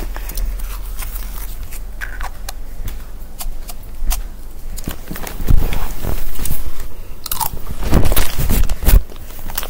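Rubbing, crackling and clicking right against the microphone as the recording device is handled, louder and denser in the second half.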